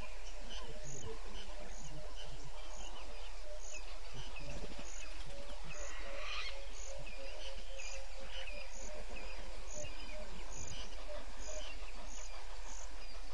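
Evening bush ambience of insects and birds calling: a short high call repeats about twice a second over scattered chirps, with a louder burst of calling about six seconds in. A faint steady low hum runs underneath.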